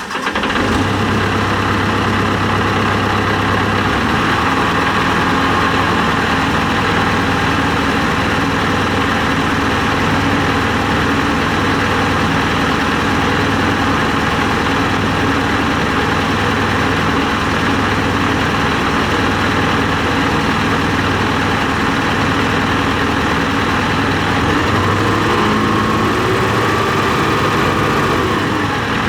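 John Deere 245G excavator's diesel engine running steadily just after being started, on freshly changed fuel filters. Near the end its pitch rises slightly.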